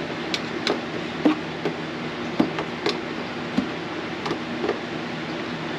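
Flathead screwdriver prying off the lid of a metal can of body filler, giving about ten sharp, irregular clicks and taps.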